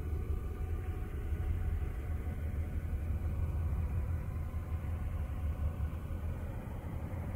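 A steady low rumble, strongest in the deep bass, unbroken and without sudden sounds.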